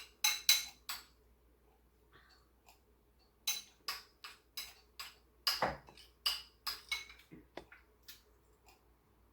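Metal utensil clinking against a dish in runs of quick, ringing taps: a few right at the start, then a lull, then a longer run from about three and a half seconds in.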